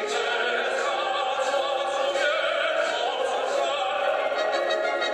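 A male tenor singing a national anthem in operatic style into a microphone, holding long notes.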